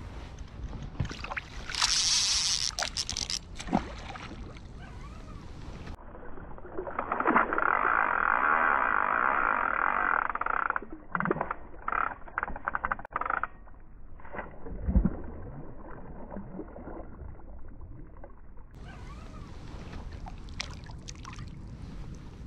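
Spinning reel's drag buzzing as a hooked sea trout pulls line off against it: a long run of several seconds in the middle, then a string of short bursts, with a shorter burst near the start. A low rumble of wind and water runs underneath.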